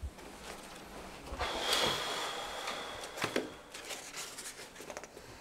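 Rustling and handling noises with a few light knocks, and a thin high whine held for about a second and a half near the middle.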